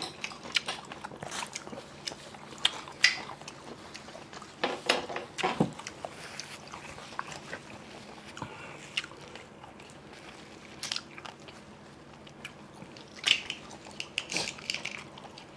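Close-up eating sounds: chewing and biting steamed seafood, with irregular small clicks and taps.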